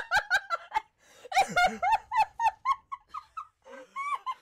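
A person laughing in quick repeated bursts, with a short break about a second in before a second run of laughter.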